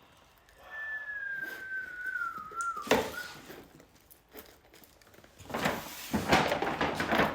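Added sound effects: a whistle-like tone sliding slowly down in pitch for about two seconds, ending on a sharp knock, then a stretch of dense rustling, crinkling noise near the end.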